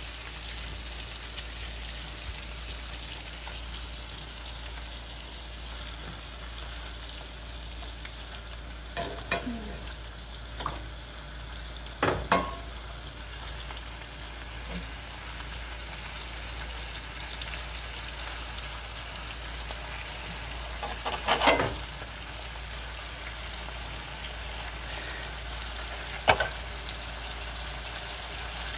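Meat chunks and onion sizzling steadily in oil in a cast iron skillet, with about four sharp clinks and scrapes of a metal fork against the pan as the meat is turned.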